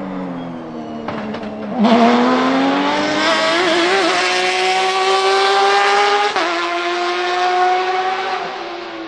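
Porsche 991.2 RSR race car's 4.0-litre flat-six with open exhaust. Its note falls for the first couple of seconds, then jumps louder and climbs steadily under acceleration, drops once at an upshift about six seconds in, climbs again and fades near the end.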